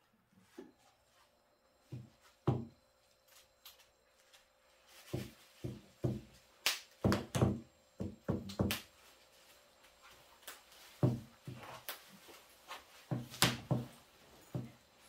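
Irregular soft thumps and taps, some twenty of them, thickest in the middle stretch, with a faint steady hum underneath.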